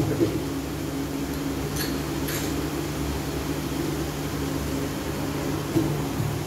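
Steady machine hum with a few fixed low tones throughout. A short knock comes right at the start and another just before the end, as a hand dips into a metal bucket of mortar.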